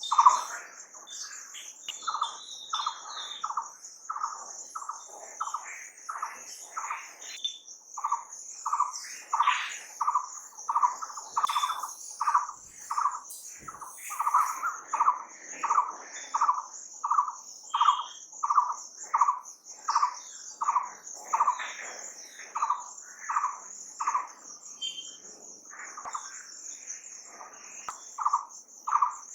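Nature soundscape: a steady high-pitched insect drone, with an animal call repeated in short notes about two a second, which the tagger hears as a bird.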